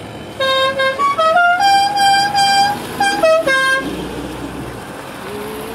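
A multi-note musical car horn playing a short tune: a run of notes stepping up in pitch, a long held high note, then a few notes stepping back down, over about three and a half seconds. Passing car engines run quietly under it and after it.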